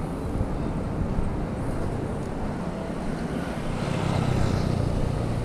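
City street noise: a steady low rumble of traffic, swelling about four seconds in.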